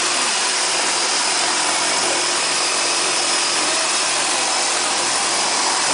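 Twin-turboprop floatplane's engines and propellers running at steady high power, heard from inside the cockpit as a constant loud noise with a faint high turbine whine.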